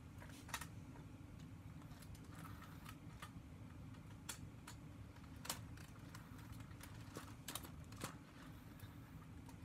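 Plastic LEGO Technic pieces clicking as pins and beams are pressed into a model truck chassis: scattered sharp clicks over a faint low hum.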